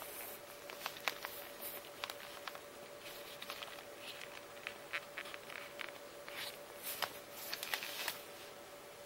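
Gloved hands handling a bridle-leather zip-around wallet: scattered soft rustles and light clicks as the leather and card pockets are flexed, over a faint steady hum.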